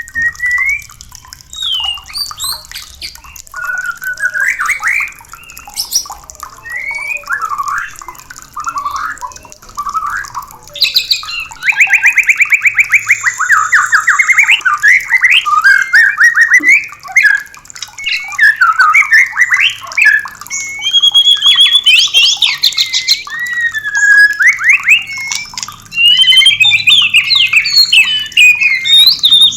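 White-rumped shama (murai batu) singing: a varied run of whistled phrases and rapid trills, which grows louder and denser about eleven seconds in.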